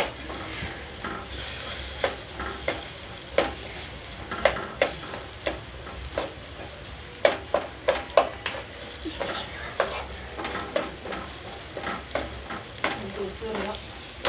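A spatula stirring and scraping urad dal, chana dal, tomato and dried red chillies frying in a pan, with irregular knocks against the pan over a steady sizzle. The dals are being fried until they turn dark.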